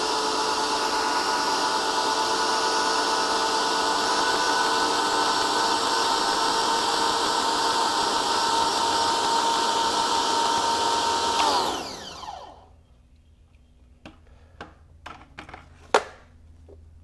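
Electric pressure washer's motor and pump running steadily with a whine while water sprays from the open, tipless wand into a plastic bucket at zero pressure, for a flow-rate test. About twelve seconds in it shuts off, the whine falling in pitch as it winds down, followed by a few light knocks.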